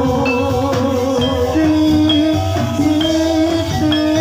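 Live Javanese gamelan music accompanying a kuda lumping (jathilan) horse dance. A steady drum rhythm and rattling percussion play under a held, slightly wavering melody line, with short high struck notes recurring every half second or so.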